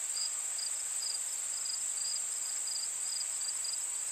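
Insect chorus of crickets: a steady high-pitched drone with short chirps repeating evenly about two to three times a second.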